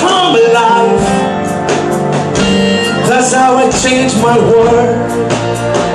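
Live gospel worship music: a band with guitar playing and voices singing.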